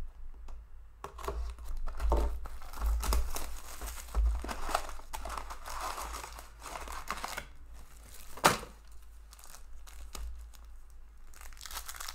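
Foil trading-card packs crinkling and rustling as they are pulled from a cardboard hobby box, then a wrapper being torn open. One sharp snap stands out about eight and a half seconds in.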